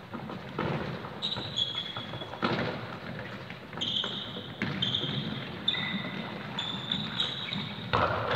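Indoor football being played on a sports hall floor: a few thuds of the ball being kicked and bouncing, and several short high squeaks of trainers gripping the floor, all echoing in the large hall.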